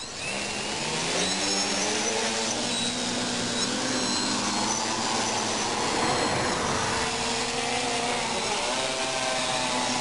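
An electric multirotor drone's motors and propellers spin up suddenly and lift it off the pond surface, then keep running in flight. The sound is a loud whirring buzz with several whining pitches that drift up and down as the motors change speed.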